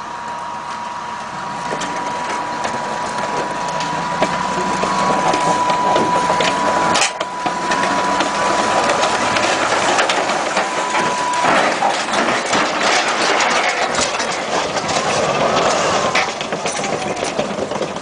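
Tracked self-propelled howitzer running, its engine carrying a steady high whine, with its tracks grinding and clattering against the lowboy trailer's steel deck as the vehicle tips off the side and overturns. The whine cuts off about two thirds of the way through, while the grinding and knocking go on.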